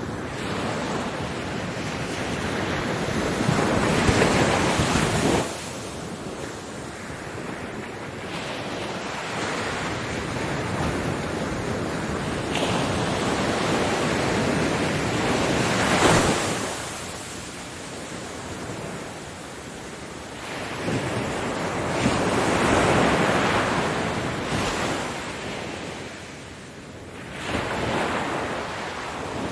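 Ocean waves breaking and washing in, swelling and falling every few seconds, with wind buffeting the microphone.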